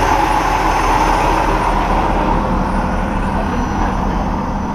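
Heavy diesel truck engine idling, a steady, loud, even running sound.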